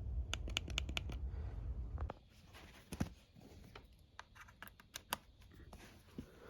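Light clicks and taps of small hardware and packaging being handled, with a quick run of clicks in the first second and scattered ones after. A low rumble underlies the first two seconds.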